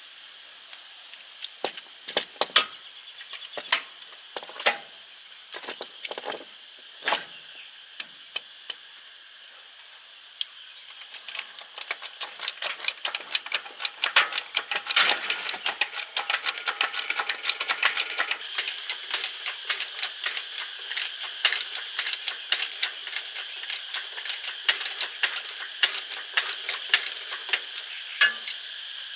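Metal tools and parts clinking and knocking: scattered single knocks at first, then a dense run of rapid clicks and rattles from about a third of the way in. A steady high insect chirring runs underneath.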